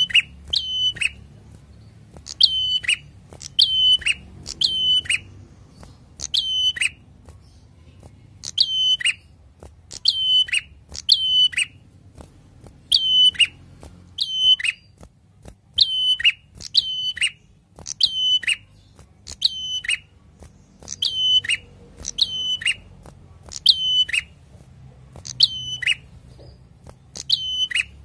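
Caged ashy tailorbird calling: loud, sharp notes that bend quickly downward, mostly given in close pairs and repeated every second or two, with a short pause partway through.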